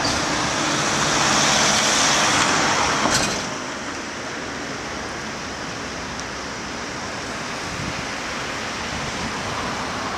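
Road and engine noise inside a moving tour coach. A louder, higher hiss over the first three seconds stops abruptly with a click, leaving a steadier, lower rumble.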